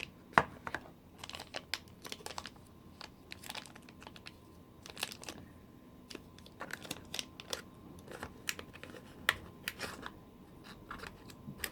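Plastic toy packaging being handled close up: irregular crinkles and sharp clicks, a few louder snaps among them.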